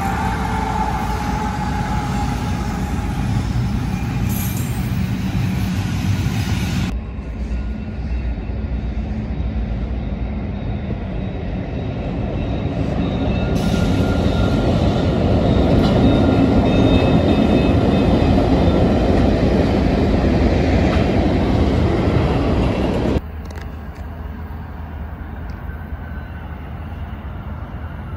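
Diesel freight locomotives from BNSF and Canadian Pacific rumbling past. After a cut, another train runs, growing louder towards the middle and staying loud. After a second cut, a quieter steady rumble remains.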